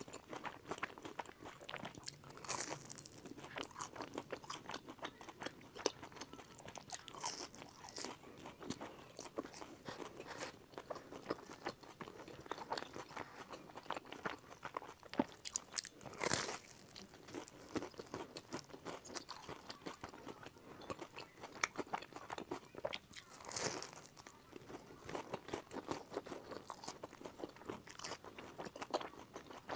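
Close-miked eating of sesame-crusted pumpkin cakes: steady crunching and chewing of the crisp sesame crust, with several louder crunchy bites spread through.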